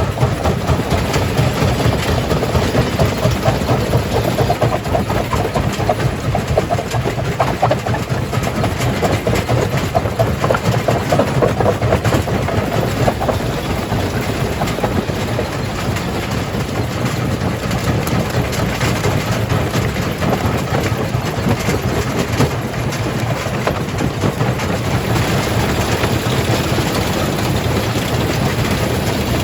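Jaw crusher running under load: a steady low machine drone with constant irregular clattering and cracking of rock being broken.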